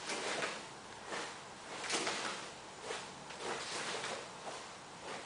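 Soft rustling swishes of a karate gi, about one swell a second, as a karateka moves through the slow blocks and stance changes of Seisan kata.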